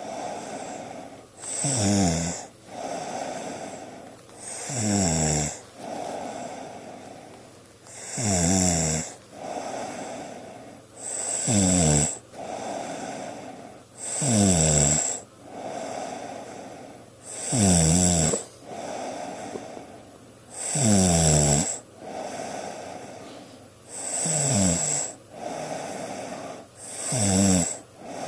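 A sleeping person snoring steadily: a loud snore with a falling pitch about every three seconds, each followed by a quieter breath.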